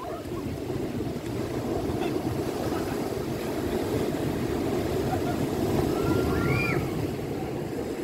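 Ocean surf breaking and washing onto a stony beach: a steady low rush that slowly grows louder. A faint distant call from swimmers comes about six seconds in.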